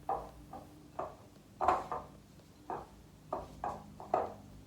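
A utensil stirring and scraping a thick, sticky mixture of oats and coconut coated in melted chocolate and butterscotch in a bowl: a series of short scrapes and knocks at an uneven pace.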